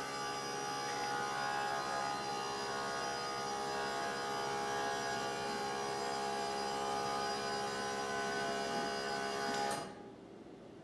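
TV lift's electric motor running with a steady, multi-toned hum as it raises the television out of the cabinet, cutting off sharply about ten seconds in when the lift reaches full height.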